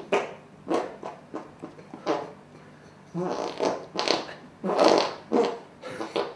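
A voice improvising a soundtrack with mouth noises and vocal sounds: about a dozen short, uneven bursts with no words.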